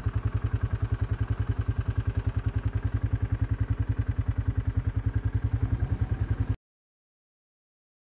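A loud, low mechanical throb pulsing evenly about twelve times a second, like a running engine; it cuts off abruptly into silence about six and a half seconds in.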